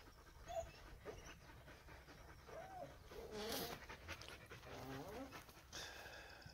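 A dog whining faintly: several short whines that rise and fall in pitch, spread over a few seconds.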